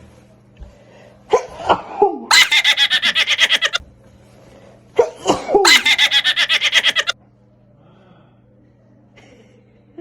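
A person sneezing twice, each a wavering 'ah… ah' wind-up followed by a second and a half of rapid, laugh-like pulsing breaths.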